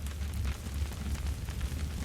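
Campfire burning, with many irregular sharp crackles and pops over a steady low rumble.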